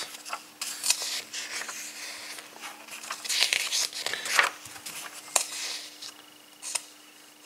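Pages of a printed catalogue being turned by hand: several papery swishes and rustles, with a faint steady hum beneath.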